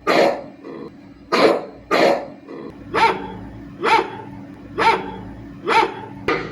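Rottweiler barking repeatedly, about one bark a second.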